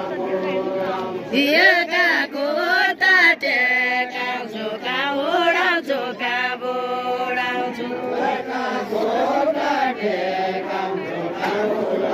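A group of voices chanting a deuda folk song together, in long, wavering sung lines.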